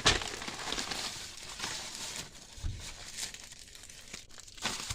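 McDonald's paper takeout packaging crinkling and rustling as the food is handled, with a soft low thump about two and a half seconds in.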